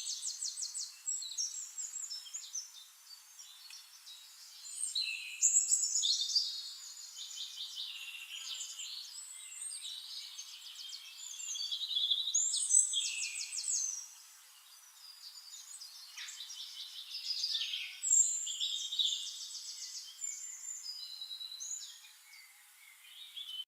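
Several songbirds singing at once: a dense chorus of rapid high trills and chirps, with louder phrases about five, twelve and eighteen seconds in.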